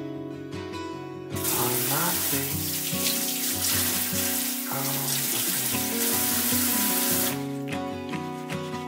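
Kitchen tap running into a stainless steel sink, splashing over a cup and scrubber as dishes are washed; the water comes on about a second and a half in and shuts off about seven seconds in.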